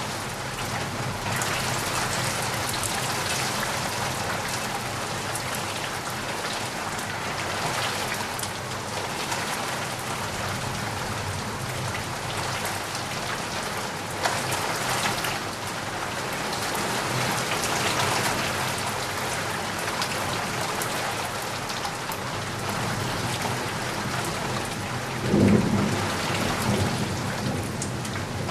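Steady rain falling on surfaces, an even wash of noise. Near the end a short low rumble of thunder rises above it.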